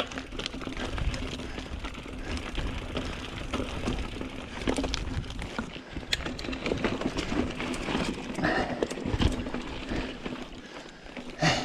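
Mountain bike being ridden up a rough, rocky trail: irregular knocks and clatter of tyres and frame over rocks and roots, with drivetrain rattle, and a brief vocal sound near the end.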